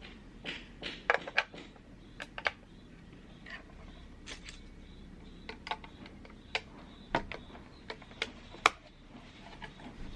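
Irregular plastic clicks and taps as the battery is fitted into a small digital kitchen scale and its battery cover snapped shut.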